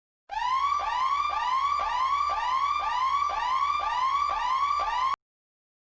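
Electronic whooping siren sound effect: a tone that sweeps quickly upward and holds, repeating about twice a second, starting and cutting off abruptly.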